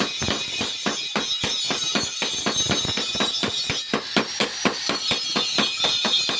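Blacksmith's hammers striking steel on an anvil in a fast, even rhythm, about five blows a second, each blow ringing: a hoe blade being forged.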